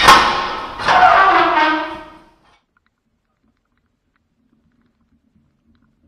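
Cattle mooing: two loud calls, the second a longer call that falls in pitch.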